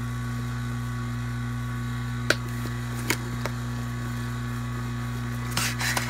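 Vacuum pump running with a steady electric hum while pulling a deep vacuum on refrigerant manifold gauges. Two sharp clicks, about two and three seconds in, and a short rustle near the end come from a cardboard probe box being handled.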